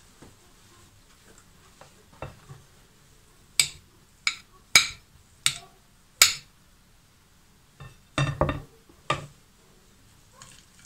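Kitchen knife clinking against a porcelain plate while breaking up crumbly fresh curd cheese: five sharp clinks roughly two-thirds of a second apart. A little later, a few duller knocks as a plastic cutting board is set back down on the plate.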